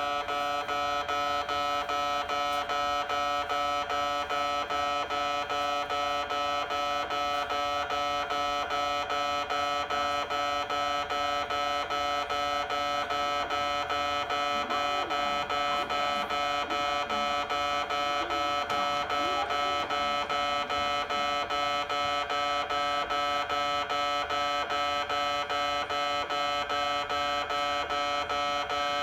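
Japanese railway level crossing warning bell ringing: an electronic alarm tone repeating at an even, rapid pace without a break. This is the crossing's new warning sound, fitted when the old one was replaced.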